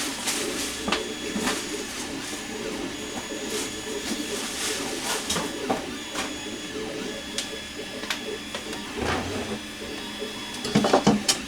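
Scattered clicks and clatter of paint-booth parts being handled and fitted together, a few louder knocks near the end, over a steady low hum.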